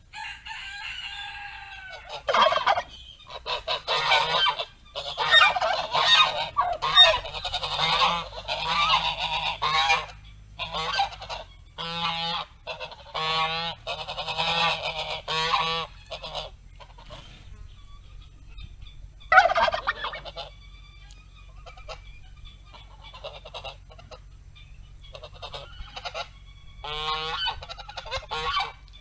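Geese honking: many overlapping calls in quick succession for the first half or so, then only a few scattered honks, with a short cluster near the end.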